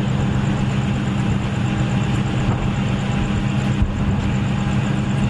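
A vehicle's engine idling with a steady low hum, under a constant rushing noise, with a faint knock about four seconds in.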